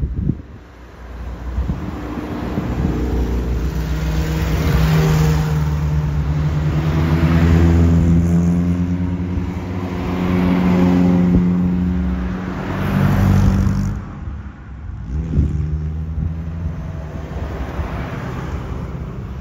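Several classic Datsun cars, Datsun roadsters among them, driving past one after another, each engine note swelling and then falling away as the car goes by.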